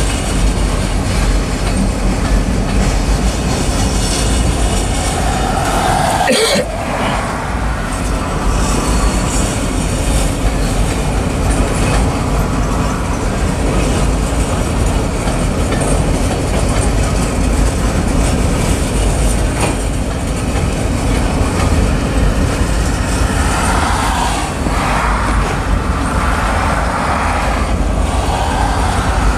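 Covered hopper cars of a manifest freight train rolling past close by: a steady loud rumble of wheels on rail, with brief higher-pitched whines from the running gear about six seconds in and again near the end.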